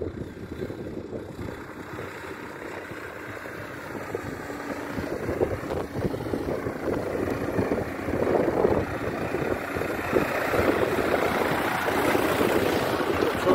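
Farm tractor's diesel engine running as it approaches along the gravel track and passes close by, growing steadily louder.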